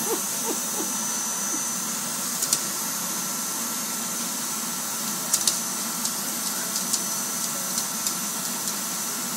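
Vacuum cleaner running steadily with a constant whine, with a few light knocks about two and a half and five seconds in.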